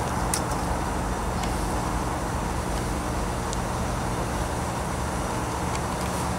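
F40PH-type diesel locomotive approaching slowly, its engine running with a steady low drone and the train rolling over the rails, with a few faint ticks.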